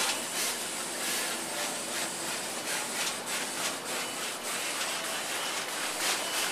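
Surface-mount PCB assembly line machinery running: a steady high hiss with a quick, irregular run of clicks, busiest around the middle.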